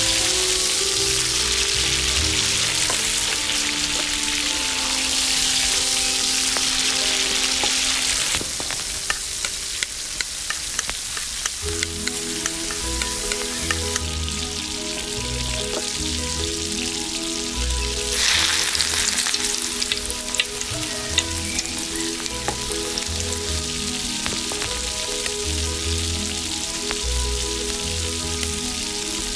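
Chopped onions and ginger frying in hot oil in a small iron wok, a steady sizzle that thins about eight seconds in and swells again about eighteen seconds in. Light clicks of stirring come through while the sizzle is thinner.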